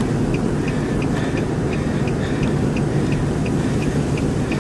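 Strong wind buffeting the microphone in a steady low rumble, the inflow wind blowing toward a tornado. A faint regular ticking runs under it, about three ticks a second.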